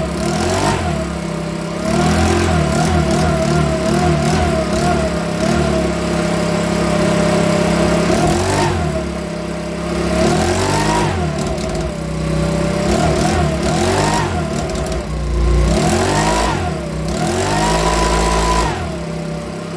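Makita BHX2500 24.5 cc four-stroke leaf blower engine running steadily, its revs rising and falling about five times in the second half as the throttle is opened and released. It is a repaired non-runner, now running again.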